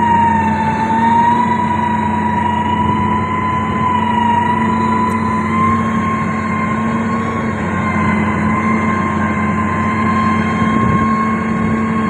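Komatsu motor grader working under load: steady diesel engine running with a high, slightly wavering whine over it.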